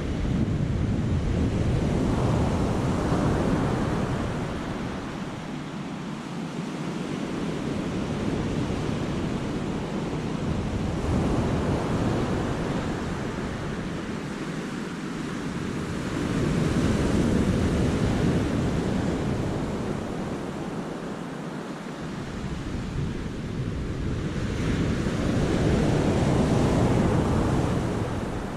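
Sea waves breaking and washing in and out of a rocky cove, swelling and falling away in slow surges about four times.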